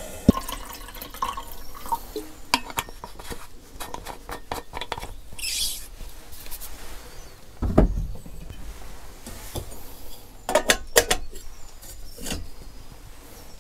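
Aluminium Trangia camping cookware being handled as the kettle is got ready: scattered clinks and knocks of pots, lids and kettle, with a short rush of water about five seconds in and a heavier thump about eight seconds in as something is set down.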